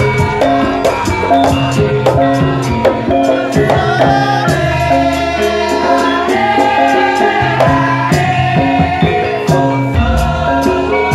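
Live Javanese traditional ensemble music: sustained melodic tones with some singing over a regular run of sharp percussion strikes.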